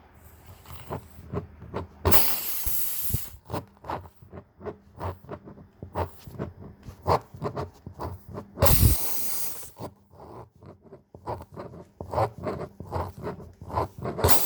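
Tire-plug reamer tool being pushed in and out and twisted in a nail hole in a tire tread, giving a string of short scrapes and clicks. Two bursts of hissing, about a second long each, come about two seconds and about nine seconds in, the loudest sounds of the stretch.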